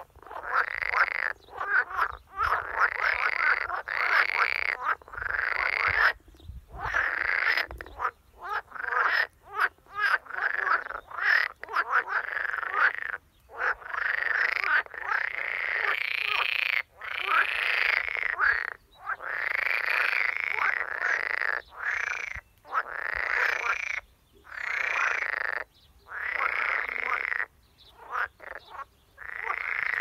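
Edible frogs (Pelophylax esculentus) croaking in a pond: a long run of croaking calls, each about a second long, one after another with short gaps.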